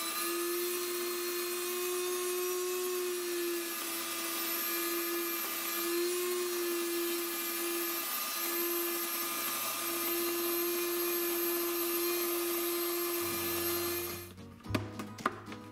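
Blendtec Kitchen Mill electric grain mill running as it grinds grain: a steady, high-pitched motor whine that cuts off suddenly about fourteen seconds in. A few clicks and knocks follow as the mill is handled.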